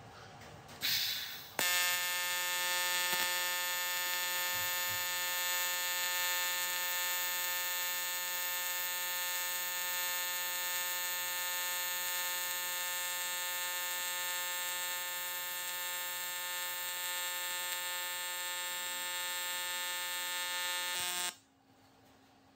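AC TIG welding arc on aluminium plate, a steady electrical buzz with many tones in it. It starts about a second and a half in, after a short burst of noise, and cuts off suddenly near the end when the arc is broken.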